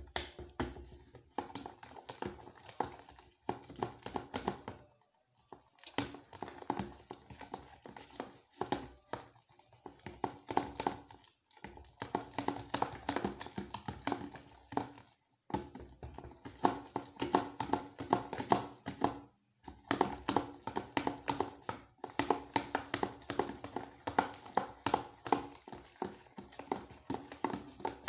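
A utensil stirring thick slime mixture of wood glue and Persil in a container: rapid, irregular taps and clicks of the utensil against the container. The run breaks off in a few short pauses.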